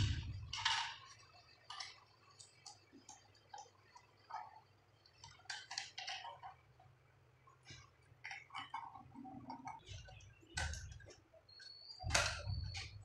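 Irregular small clicks, taps and scrapes of plastic and metal as a foot light fitting is pressed into a wall box and worked with a screwdriver. The clicks cluster more densely near the end, with a short high squeak.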